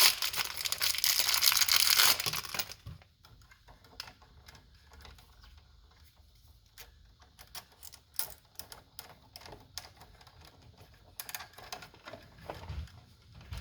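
Hands working wires and a light switch: a loud crinkling rustle for about the first three seconds, then scattered light clicks and taps.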